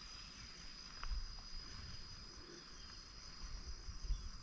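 Insects shrilling: a steady, high-pitched, unbroken drone, with faint low rumbles about a second in and near the end.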